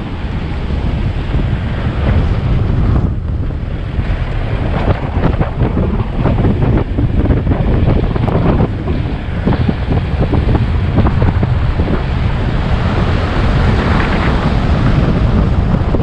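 Wind buffeting the microphone over the low rumble of a moving vehicle, with frequent knocks and rattles.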